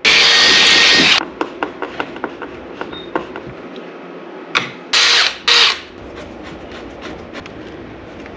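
Power drill running in short bursts to drive the mounting screws of a bus bar into the wall: one burst of about a second, a string of sharp clicks, then two short bursts about half a second apart.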